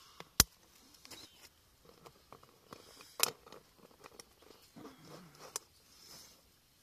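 Water poured in short trickles from a plastic bottle into a stainless steel mug, with sharp clicks and crackles from the plastic bottle against the metal; the loudest clicks come about half a second in and just after three seconds.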